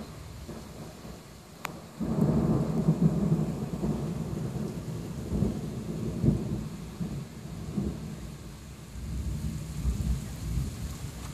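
Thunder: a sudden loud clap about two seconds in that rolls on as a deep, swelling rumble for several seconds, heard from inside a truck cab with rain falling on it.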